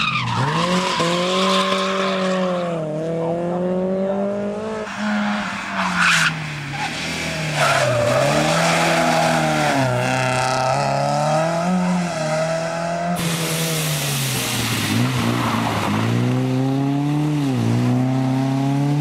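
Rally cars, among them BMW E30 coupés, driven hard one after another, engines revving up and dropping back over and over through gear changes, with tyre noise as they slide through the corners. The sound changes abruptly a few times as one car gives way to the next.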